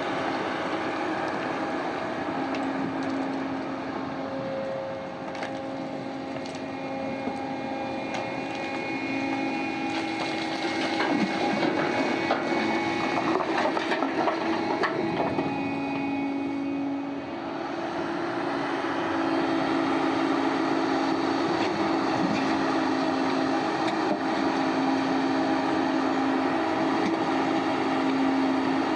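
Heavy diesel machinery running steadily, its engine note shifting in pitch now and then. A louder stretch of rock crunching and clattering comes about eleven to sixteen seconds in.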